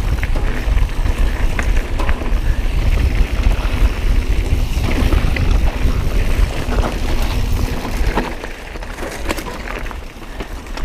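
Mountain bike being ridden on a singletrack trail: steady wind rumble on the helmet or bike camera's microphone, with tyre noise and scattered clicks and rattles from the bike over the ground. It eases off a little near the end.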